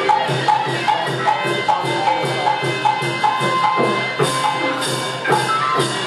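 Traditional Burmese music: pitched percussion notes over a bright struck accent that keeps a steady beat of about two and a half strokes a second.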